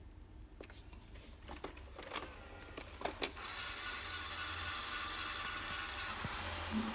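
A few clicks, then a Xiaomi robot vacuum's motor and fan start about three and a half seconds in and run steadily with a fine whine. A lower hum joins near the end.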